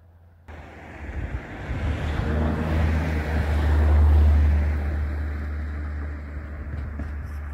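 A gust of wind buffeting the microphone: a loud rushing rumble that starts abruptly about half a second in, swells to its peak in the middle and slowly eases off.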